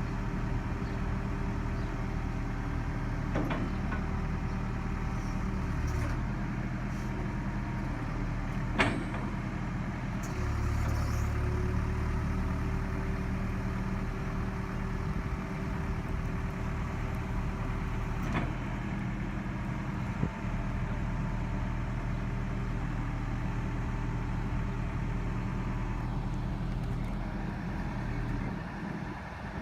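Heavy construction machine's engine running steadily. It grows louder for a couple of seconds about ten seconds in. A few sharp knocks are heard over it, the loudest about nine seconds in.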